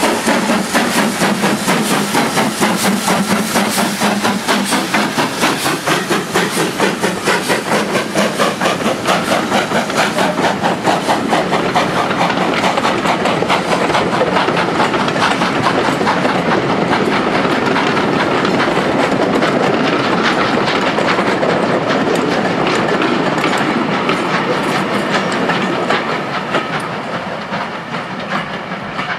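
BR Standard Class 5 4-6-0 No. 73129, the Caprotti valve-gear engine, starting away hard with a train: a loud, evenly spaced exhaust beat that comes faster and blurs into a continuous sound, with coach wheels clicking over the rail joints as the train passes. It fades over the last few seconds as the train draws away.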